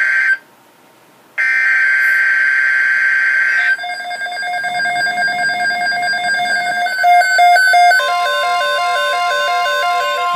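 Emergency Alert System SAME header data bursts: a harsh digital screech that ends just after the start, then after a gap of about a second another one lasting about two seconds. Music follows, and about eight seconds in a steady single-pitched alert tone starts over it.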